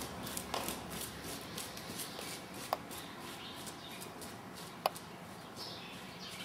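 Welsh pony's hoofbeats on soft arena footing, a muffled beat of about three a second, with two sharp clicks, one about a third of the way in and one about three-quarters of the way in.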